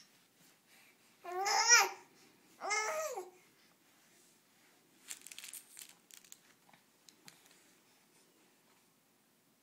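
Baby vocalizing: two short, high-pitched wavering babbles about a second apart, the first the louder, followed a couple of seconds later by a soft rustle.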